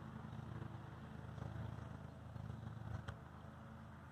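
A car passing on a nearby road, heard as a low steady engine hum. A single short knock about three seconds in.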